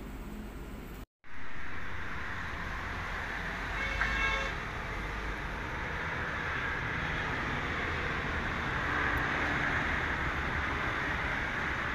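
Steady road traffic noise, with one short vehicle horn toot about four seconds in.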